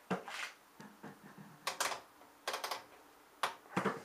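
Irregular clicks and knocks of handling, coming in four short clusters, as hands and a hand-held camera move about among plastic pipe fittings and equipment.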